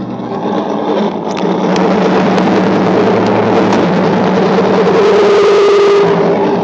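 Fender Jaguar electric guitar, set down and left sounding through effects and a Vox amplifier, making a loud, dense noise drone with held tones inside it. It swells over the first couple of seconds, then holds steady.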